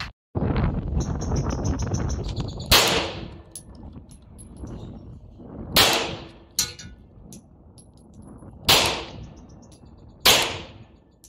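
Four single .380 ACP pistol shots from a Glock 17 Gen 5 converted with a 664werx conversion barrel, each with a sharp crack and a short ringing tail. The shots come a few seconds apart, the last two closer together. Before the first shot there are a couple of seconds of rushing noise.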